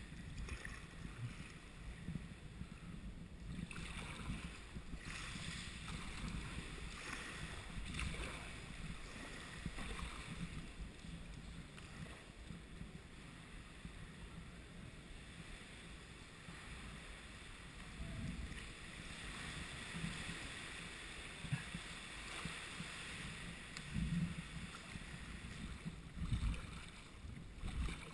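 Sea kayak paddling: paddle blades dipping and splashing, with water lapping around the hull, and a few low thumps near the end.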